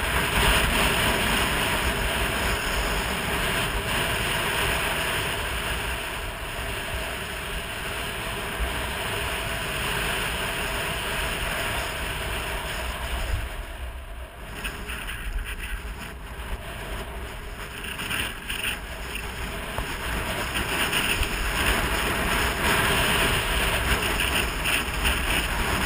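Skis hissing and scraping over groomed snow on a downhill run, with wind buffeting the microphone in a low rumble. The sound eases for a moment about halfway through, then builds again.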